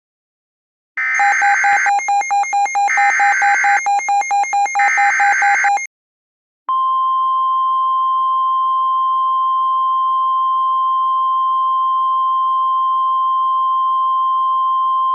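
Emergency Alert System SAME header: three short bursts of buzzy, chirping digital data tones. After a brief gap comes the steady NOAA Weather Radio 1050 Hz warning alarm tone, signalling the start of a new tornado warning.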